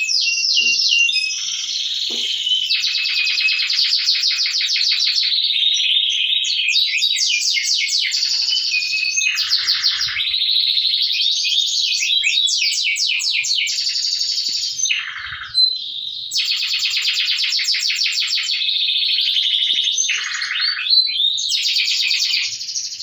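AFSF crossbred canary singing: a long, nearly unbroken high-pitched song of fast rolling trills and chirps, breaking off briefly a few times.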